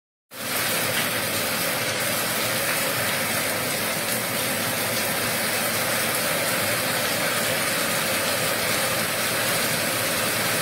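Steady heavy rain, an even hiss that starts about a third of a second in and holds without change.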